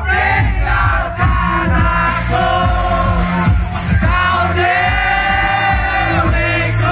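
Loud live concert music with a heavy bass beat and a sung melody, mixed with crowd noise.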